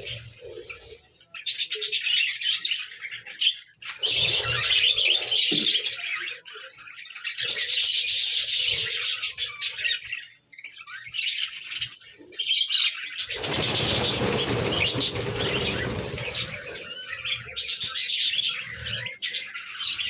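A flock of budgerigars chattering and chirping in bursts. A loud rushing noise lasts about three seconds midway.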